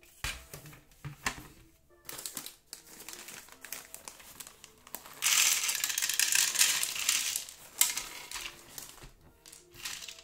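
Thin plastic bag crinkling as it is handled and opened, then small plastic pegs clattering as they are poured into a plastic game tray, loudest for a few seconds from about five seconds in.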